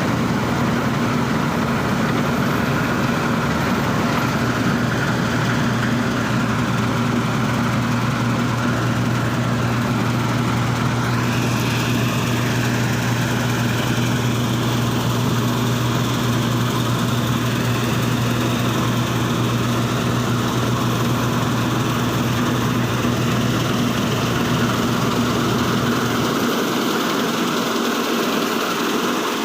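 Combine harvester engine running steadily with a deep, even hum; the lowest part of the hum drops away near the end.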